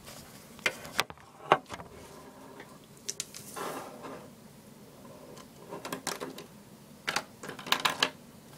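Handling noise: scattered small clicks and taps as a camera is set down on a tabletop and plastic paint markers are picked up and laid down, with a quick run of clicks near the end.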